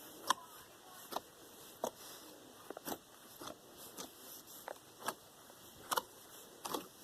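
Homemade slime being poked and squeezed by hand, giving a string of short, irregular sticky clicks and pops, roughly one a second.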